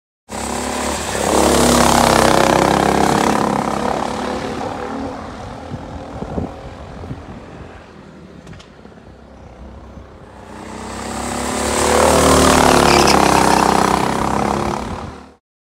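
Racing kart engines at high revs passing close by, loudest about two seconds in and again about twelve seconds in, with a fainter engine note between the two passes; the sound cuts off suddenly near the end.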